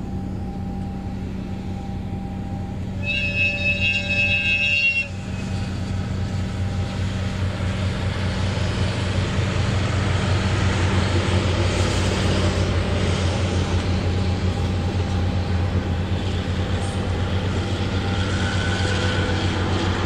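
JNR DE10 diesel-hydraulic locomotive hauling passenger coaches: its engine drones steadily as it approaches, and its horn sounds for about two seconds about three seconds in. The rumble of the coaches' wheels on the rails then grows as the train passes close by.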